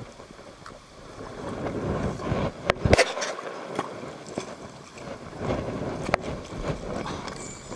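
Hooked carp splashing and thrashing at the surface near the bank as it is played in on a rod and spinning reel, with a few sharp clicks and a knock about three seconds in.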